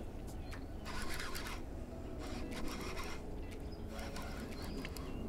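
Baitcasting reel being cranked against a hooked pike, giving irregular scratchy rubbing and scraping noises about every second or two, over a low rumble.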